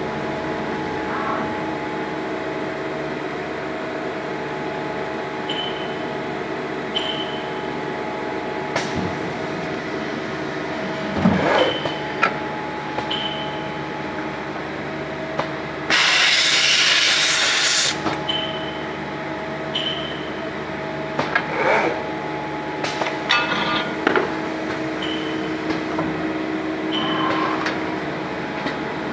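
CNC machine and its pneumatic rod auto loader running: a steady machine hum with scattered clicks and clunks of the loader's mechanism and brief high chirps now and then. A loud hiss lasts about two seconds around the middle.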